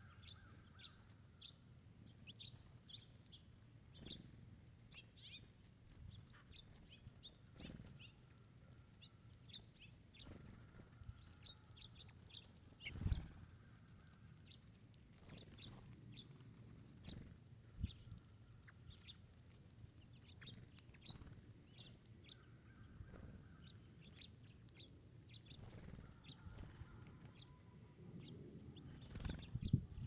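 Small songbirds calling, with many short, high chirps and chips scattered throughout, faint. A few low thumps stand out, the loudest about halfway through and near the end.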